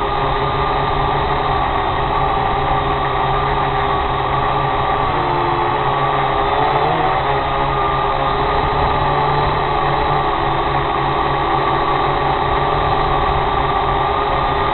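Small drone's electric motors and propellers humming steadily from its onboard camera, several tones that bend briefly up and down about halfway through as the craft changes speed, over a rushing noise.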